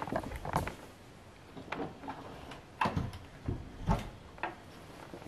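Soft footsteps and a wooden door being handled: about half a dozen quiet knocks and clicks, spread out and separate.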